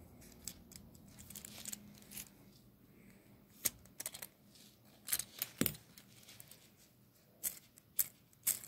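Small hard plastic parts of a Beyblade Burst spinning top clicking and knocking as they are handled and fitted together. The sharp clicks come irregularly, sparse at first and more frequent from about the middle on, with three near the end.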